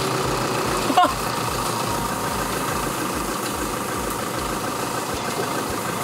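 Vehicle engine running steadily while towing a wooden wagon, with a single sharp knock about a second in.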